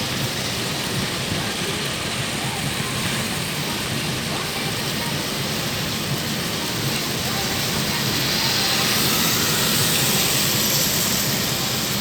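Heavy rain falling, a steady hiss that swells a little about two-thirds of the way through.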